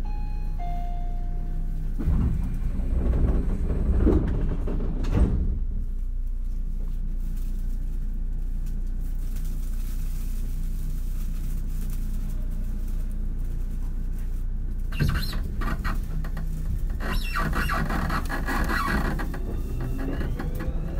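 Tobu 30000 series electric train under way, heard from inside car MoHa 33609: a steady running rumble, with a few short stepped tones at the start. About two seconds in it gets louder and rougher for a few seconds, and from about fifteen seconds in the wheel-and-rail noise swells again with high squealing.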